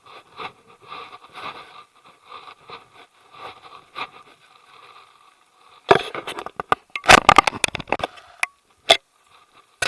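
Footsteps crunching on a trail, about two a second, then loud scraping and clicking close to the microphone from about six seconds in.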